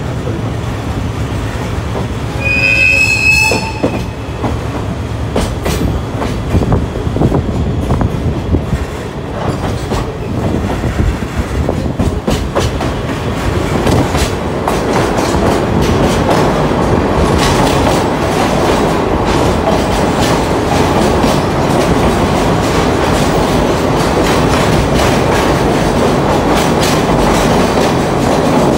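Sagano Scenic Railway trolley coach running on jointed track, with a steady rumble and the click of the TR209 bogies' wheels over rail joints. A brief high-pitched squeal comes about three seconds in, and the running noise grows louder from about halfway through.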